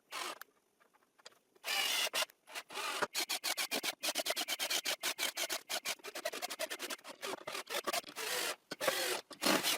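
Wood being rubbed or scraped by hand in quick back-and-forth strokes, several a second, with a few slower, longer strokes before and after.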